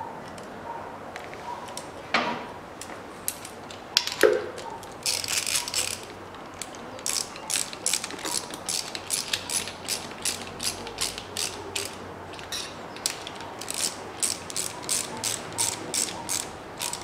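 Ratchet wrench clicking in quick runs with short pauses as it tightens the mechanical fuel pump onto the engine block, with two louder metal knocks in the first few seconds.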